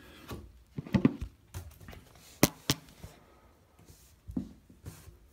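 Handling sounds of hands pressing plumber's putty around a chrome tub drain flange: scattered soft taps and rubs, with two sharp clicks in quick succession midway.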